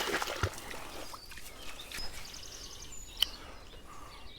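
Short high bird chirps over a steady background hiss, with a few clicks at the start and one sharp click a little past three seconds in.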